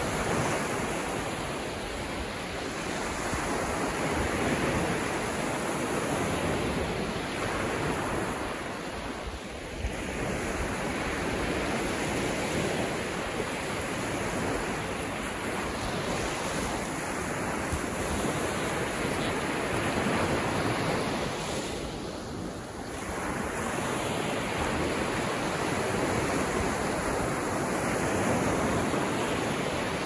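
Small waves breaking and washing up a sandy beach: a steady wash of surf that swells and ebbs, with brief lulls about ten seconds and twenty-two seconds in.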